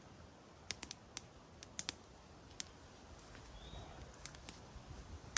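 Wood fire crackling: about a dozen irregular, sharp pops and ticks, fairly quiet, with a faint short high chirp about two-thirds through.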